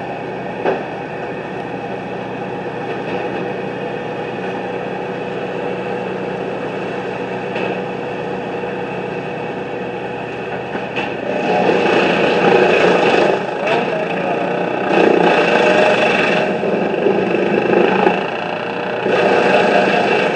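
Tree crew's engine-driven equipment running steadily. From about halfway it surges louder four times, each surge lasting a second or two.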